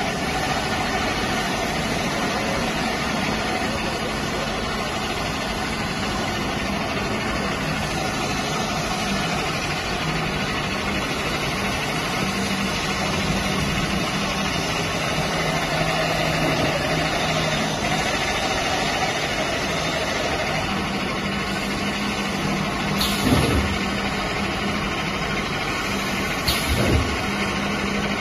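Plastic pipe perforating (drilling) machine running: a steady motor hum over a constant mechanical noise. Near the end there are two short clunks a few seconds apart.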